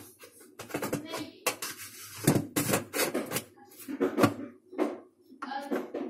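Plastic filter being pushed and twisted back into the sump of a Hotpoint dishwasher: an irregular series of clicks and knocks.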